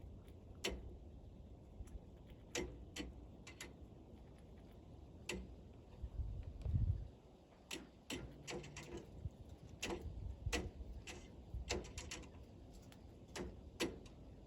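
Pileated woodpecker pecking at wood: irregular single knocks, now and then in quick little clusters. A short low rumble about six to seven seconds in is the loudest moment.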